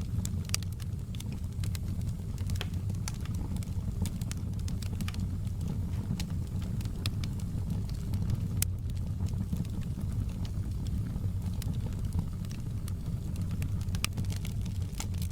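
Wood fire burning in a fireplace, crackling with many small irregular pops over a steady low rumble.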